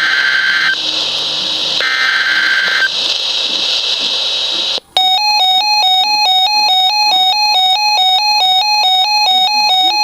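Emergency Alert System SAME data bursts from a NOAA Weather Radio broadcast: three harsh, buzzy digital bursts about a second long, a second apart. After a brief dropout about five seconds in, a loud electronic alert tone warbles rapidly between two pitches.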